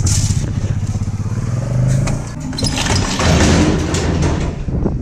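A vehicle engine running with a low, fast, even pulse, its pitch rising briefly about two seconds in, with a louder rough noise over it from about two and a half to four and a half seconds in.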